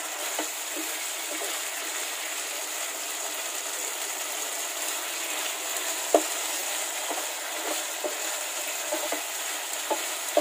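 Pork pieces in oyster sauce sizzling steadily in a frying pan as a wooden spatula stirs them, with a few light knocks and scrapes of the spatula against the pan. The sauce is being cooked down until it dries and the pork turns oily.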